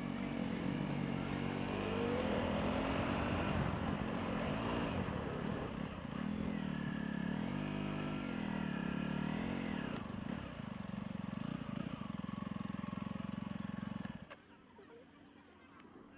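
Motorbike engine running with its pitch rising and falling as it speeds up and slows down, amid traffic noise. It drops away abruptly near the end.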